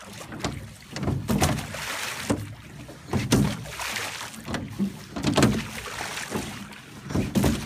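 Rowing: a pair of oars knocking in their oarlocks and pulling through the water of a small fibreglass rowboat, a stroke about once a second, with water hissing along the hull between strokes.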